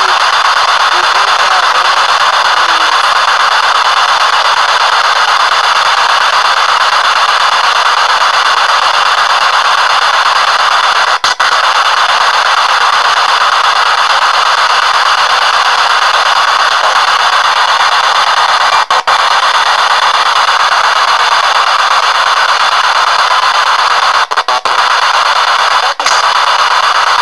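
P-SB7 spirit box sweeping through radio stations, heard through an external speaker: loud steady static hiss, broken by brief drop-outs about eleven and nineteen seconds in and a few more near the end.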